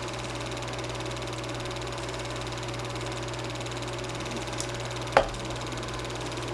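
Super 8 film projector running: a steady mechanical whir over a constant low hum, with a single sharp click about five seconds in.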